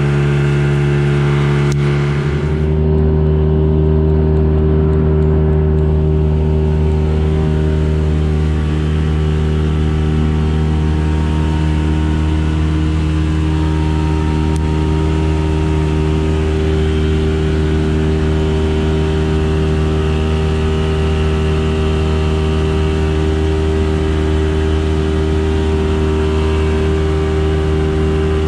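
A 40 hp two-stroke outboard motor running under way. Its note changes once about two seconds in, then holds steady.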